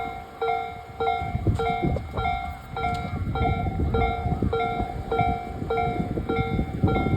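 Tobu 8000 series electric train running through the station without stopping: a low rumble with irregular clattering knocks from the wheels. Over it, an electronic level-crossing warning bell rings in a steady alternating pattern, about three rings a second.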